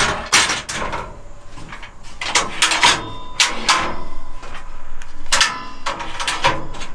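A perforated metal bunk platform and its wooden support legs being handled as a couch is turned into a bunk bed: a series of knocks, clacks and rattles, some with a short metallic ring.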